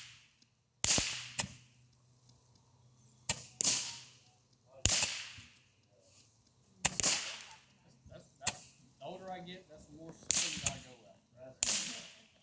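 Handheld Roman candle firing one shot after another: a sharp pop followed by a fading hiss, about one every second or two.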